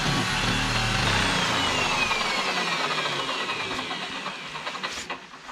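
Parkside PDM600B2 mini wood lathe with a log mounted: a turning tool cutting at the spinning log at first, then the motor switched off and winding down, its whine falling in pitch and fading over several seconds.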